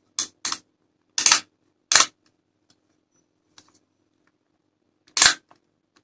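Five sharp plastic clicks and knocks from a Panasonic EH-KA81 hair dryer being handled: four in the first two seconds and one more about five seconds in. Its motor does not run.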